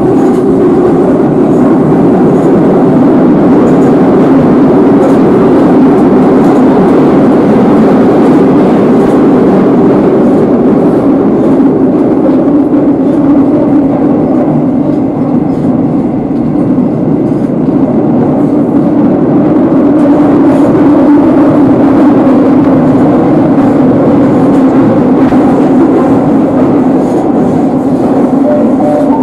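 Madrid Metro Series 8400 train heard from inside the passenger car as it runs through the tunnel: a loud, steady rumble from the wheels on the rails, with faint light ticks now and then.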